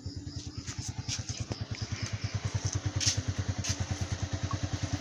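Motorcycle engine idling steadily, an even rapid beat of about a dozen pulses a second, with a few light clicks over it.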